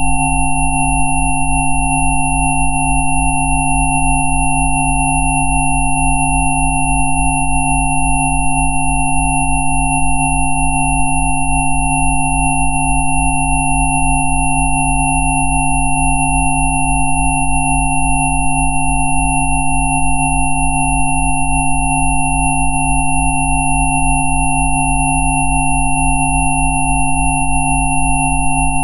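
Several electronically generated sine tones held steady together, from a deep low hum up to a thin high whistle, with the lowest tone pulsing evenly. These are 'Rife' frequencies played as a continuous tone mix.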